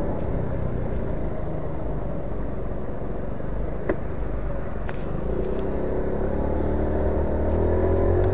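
Scooter engine running at low speed under a steady low rumble, with a short click about four seconds in. From about five seconds its pitch rises steadily as it speeds up.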